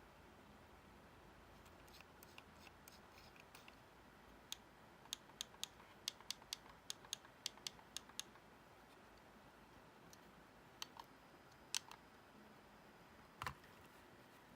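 Logitech M590 silent mouse buttons being clicked: short, soft clicks, a few faint ones, then a quick run of about a dozen at roughly three a second, and a few more later. A single duller thump comes near the end.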